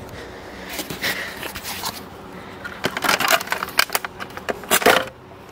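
Handling noise: rustling and scraping with a run of sharp clicks and knocks, busiest from about three to five seconds in.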